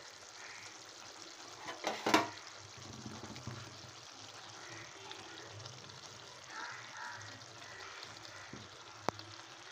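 Thick chicken chukka sizzling faintly in a frying pan as a spatula stirs through it. A louder clatter of the spatula against the pan comes about two seconds in, and a single sharp click near the end.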